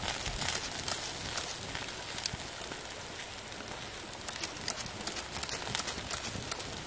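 Fish grilling over an open fire: irregular sharp crackles and pops over a steady sizzling hiss.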